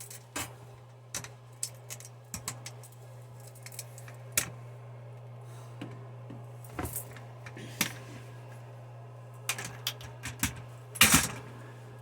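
Irregular clicks and clacks of small hard objects being handled, with a quick louder cluster near the end, over a steady low hum.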